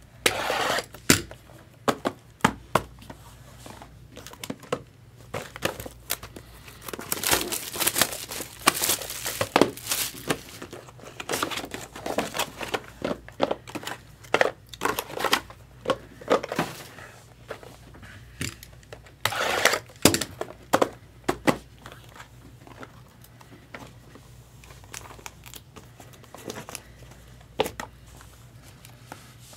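Plastic wrapping on trading-card boxes crinkling and tearing in bursts of rustles and sharp clicks. It is busiest through the middle and tails off to a few occasional handling ticks near the end.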